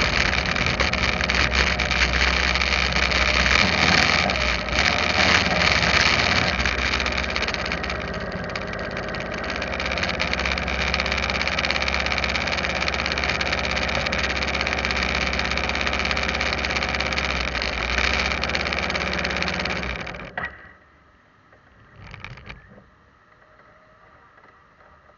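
Vehicle engine running as it moves slowly, then idling steadily. It is switched off suddenly about twenty seconds in. After that it is quiet except for one short sound about two seconds later.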